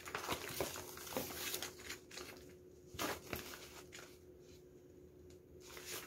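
Faint rustling and light clicks over a steady faint hum, busiest in the first second and a half and again about three seconds in.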